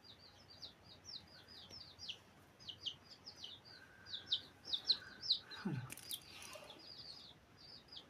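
Rapid, continuous high bird-like chirping: many short chirps a second, each a quick downward sweep, with a brief low falling sound just before six seconds in.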